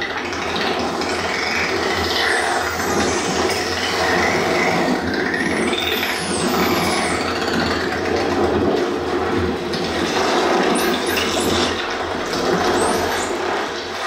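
Samsung HW-Q70R soundbar playing a nature documentary's underwater soundtrack: a steady rushing, bubbling water wash, with short high chirps sliding in pitch several times.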